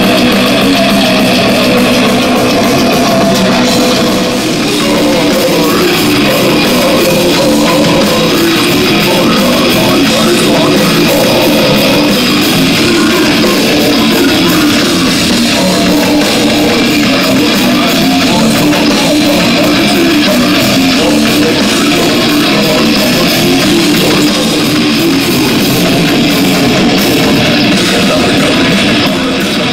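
Loud live metal band playing through a PA: distorted electric guitars, bass and a drum kit.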